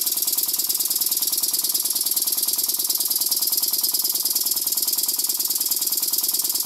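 Blackgates Twin oscillating-cylinder model steam engine running steadily on compressed air, fed on one side only so it drags the other cylinder. It makes a rapid, even mechanical beat with a hiss of exhausting air. It is running well.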